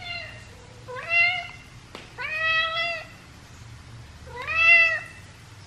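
Domestic cat meowing over and over: three drawn-out meows about a second or two apart, each rising in pitch at the start, with the tail of another at the start. The cat is worked up and agitated, "just losing it".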